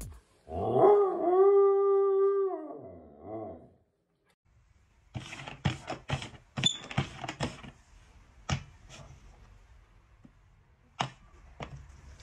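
An animal gives one long howl that rises, holds its pitch and then falls away over about three seconds. A couple of seconds later comes a run of sharp knocks and taps with a brief high squeak among them, then a few single knocks.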